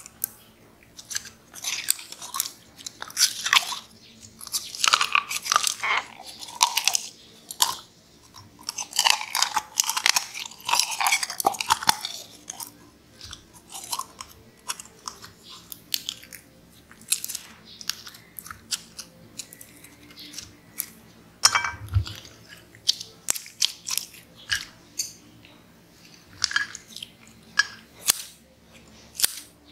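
Clear slime with yellow beads squelching and crackling as it is squeezed out of a plastic bottle onto a glass plate. In the later part come a run of sharp scissor snips as the slime is cut, with one louder thump about two-thirds in.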